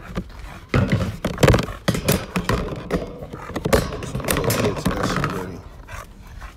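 Bully-breed dog growling over a chew bone, mixed with repeated sharp knocks and clatter; the growling fades out near the end.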